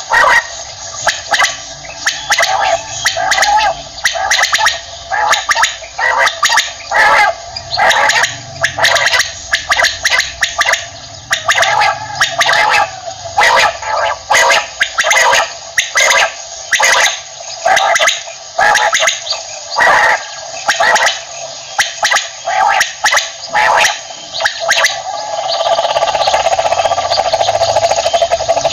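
Common quail calling over and over in quick, irregular bursts of short notes. Near the end the calls run together into a steadier, unbroken sound.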